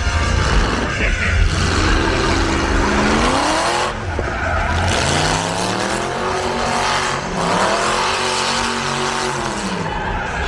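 Drift car's engine revving with tyres squealing. The revs climb about three seconds in, climb again about halfway, hold high with small dips, then fall away near the end.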